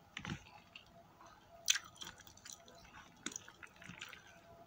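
Close-up eating sounds: wet chewing and mouth smacks while fingers pick at food in a plastic container. Irregular short clicks and smacks, the sharpest about two seconds in.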